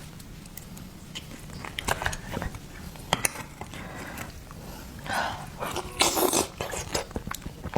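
Close-up mukbang eating sounds of a person eating oysters: scattered sharp clicks with a couple of wet slurps about five and six seconds in.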